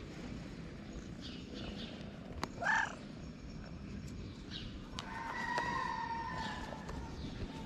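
A domestic cat purring while it is stroked, with one short meow about three seconds in. A steady high tone from an unclear source runs through the second half.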